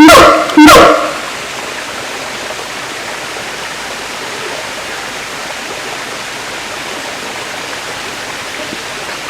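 A siamang's loud call, a stack of pitched notes, stops about a second in. After that there is only a steady rushing noise, like running water.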